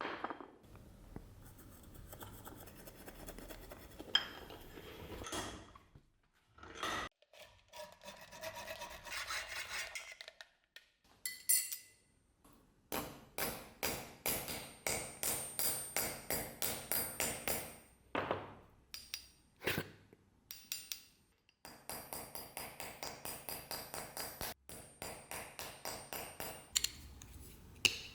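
Rhythmic back-and-forth abrasive rubbing by hand, two to three strokes a second, in runs broken by short pauses and a few clicks.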